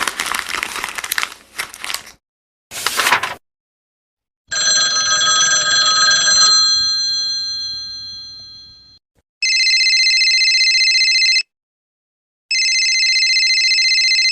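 A string of separate sound effects: a crackly noisy clatter for about two seconds and a short burst, then a ringing bell tone that fades away over about four seconds, then a telephone bell trilling in two rings of about two seconds each with a pause between them.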